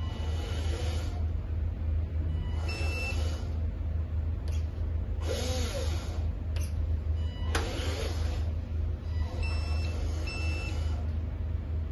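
Lesu RC hooklift truck's built-in sound system playing a steady low diesel-engine rumble as the model is driven by radio. Short bursts of air-brake hiss come every second or so, with a few brief beeps.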